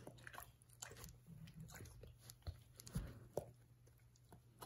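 Great Dane puppy chewing and biting a feather held between its paws: irregular soft crunches and clicks, with a few louder snaps about two and a half to three and a half seconds in.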